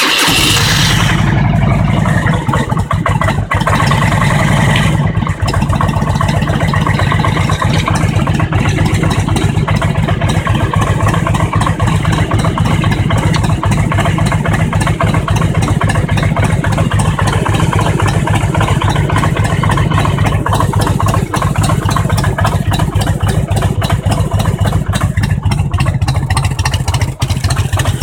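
Harley-Davidson Road King's Twin Cam 88 V-twin engine running steadily with a strange knock, a fault that showed up at around 50,000 miles.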